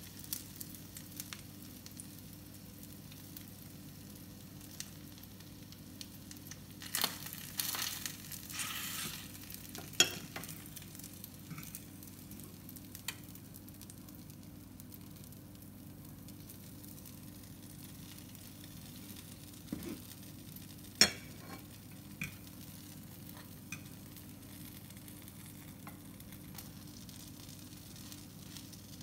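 Bread and beef rib frying in a pan with a low, steady sizzle. A louder crackling burst comes about a quarter of the way in, and a few sharp clicks of a fork against the pan follow.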